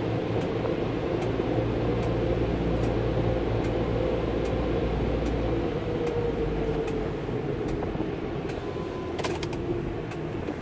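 Steady hum of a car's air-conditioning blower and running engine, heard inside the cabin, with a faint regular clicking about twice a second from the back of the car, and a quick cluster of clicks about nine seconds in.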